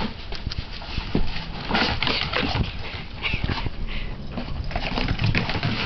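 A dog running back and forth on a snow-dusted wooden deck, a quick, uneven run of paw steps and scuffs on the boards.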